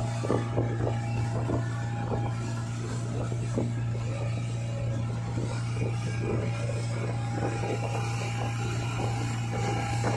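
Motorboat engine running steadily at towing speed with a constant low hum, over the rush of the churning wake and irregular splashes of water.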